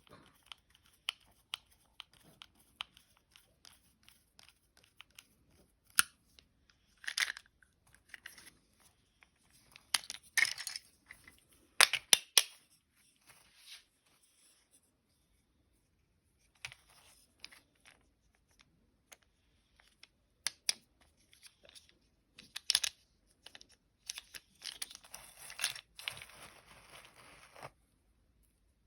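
Small plastic toy parts being handled: scattered sharp clicks and taps, with a longer stretch of rustling near the end.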